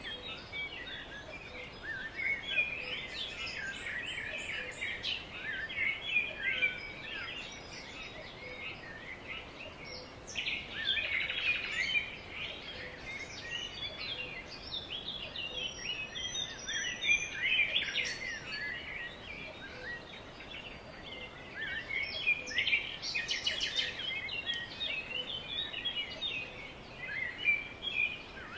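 Songbirds singing: a near-continuous run of quick chirps and trills, busier in a few stretches, over a faint background hiss.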